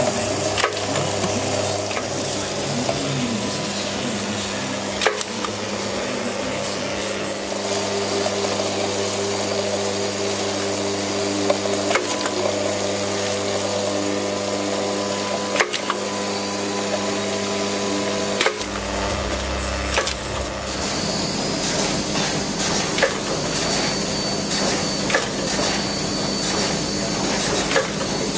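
Automatic front-and-back self-adhesive labelling machine running: a steady mechanical hum of several tones, with occasional sharp clicks and knocks from the conveyor and labelling heads. The low hum shifts about two-thirds of the way through.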